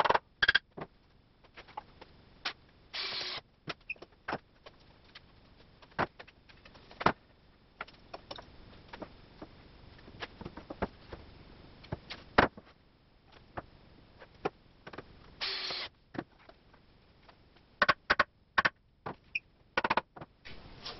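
Irregular knocks and clicks of wooden boards, clamps and hand tools being handled while a 2x4 frame corner is fitted and pressed together, with two short scraping or hissing bursts, one about three seconds in and one about fifteen seconds in.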